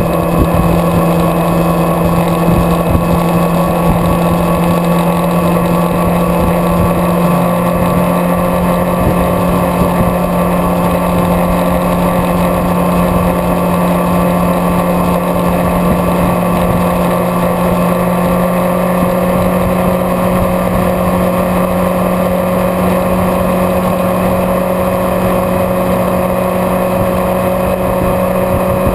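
Vehicle engine running steadily at highway cruising speed, mixed with wind and road rumble, heard from the moving vehicle carrying the camera. The engine's pitch creeps slowly upward in the second half.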